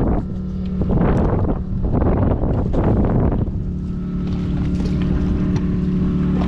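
A fishing boat's engine runs with a steady low hum. For the first three and a half seconds, gusts of wind buffet the microphone.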